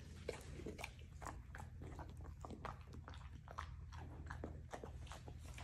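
Golden retriever puppy chewing pieces of cooked chicken: a run of irregular wet smacking and clicking mouth sounds, several a second.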